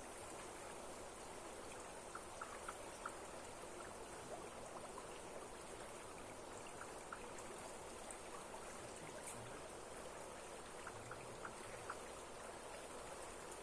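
Steady, faint rush of flowing water from a stream or waterfall, with scattered small ticks over it.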